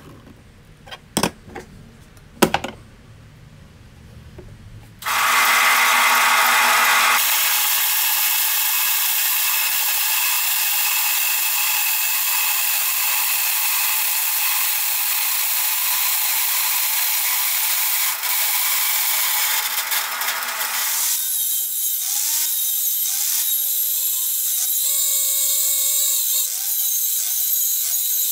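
A few light taps on a steel sheet, then a vertical bandsaw cutting sheet steel with a loud, steady hiss that starts suddenly about five seconds in. About twenty seconds in, an angle grinder takes over, grinding a steel edge, its pitch dipping and recovering again and again as it bears on the metal.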